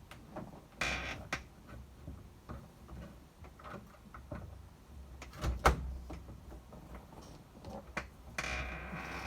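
Scattered clicks, knocks and brief rattles of door lock parts being handled and fitted against the door, with one sharper click about five and a half seconds in.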